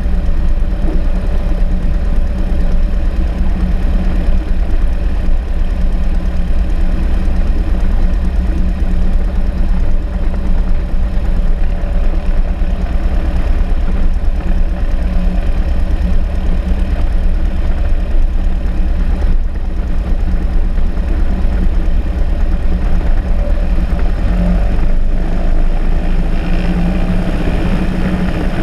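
Single-engine Cessna's piston aircraft engine idling steadily, its propeller turning slowly.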